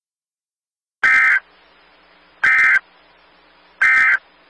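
Emergency Alert System end-of-message data bursts: three short bursts of digital data tones, about a second and a half apart, signalling the end of the alert.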